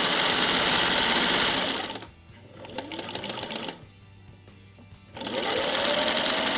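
Singer 600E Touch & Sew sewing machine running with its needle moving, winding the bobbin in place under the needle plate. It stops about two seconds in, starts again briefly, falls quiet, then speeds up with a rising whine about five seconds in and runs on.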